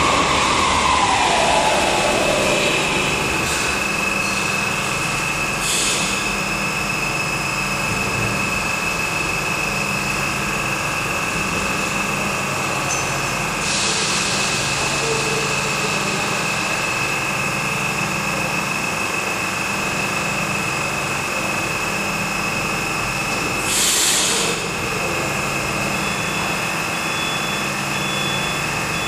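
Metro train coming to a halt at an underground platform with a falling whine, then standing with a steady high whine and a pulsing low hum from its onboard machinery. Short hisses come about 6, 14 and 24 seconds in, the last the loudest.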